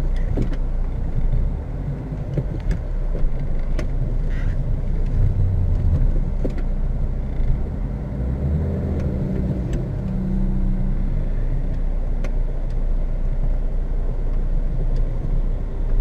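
Fiat Tipo 1.9 TD's four-cylinder turbodiesel engine running as the car drives on a snowy road, heard from inside the cabin. The engine is louder for several seconds in the middle. Scattered light clicks and knocks sound throughout.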